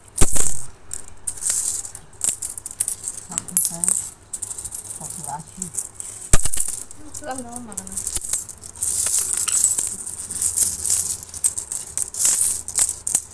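Loose metal coins clinking and jingling as hands sweep them across a hard floor, pick them up and stack them, with two louder knocks, one just after the start and one about six seconds in.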